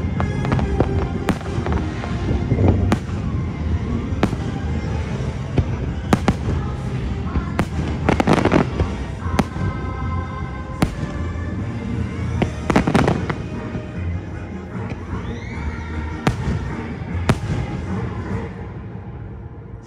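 Fireworks bursting at irregular intervals, with longer crackling bursts about eight and thirteen seconds in, over the show's accompanying music.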